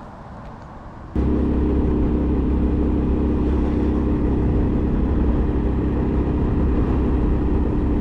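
An engine running at a steady speed, a loud even drone with a low hum, which starts suddenly about a second in and keeps going without changing pitch.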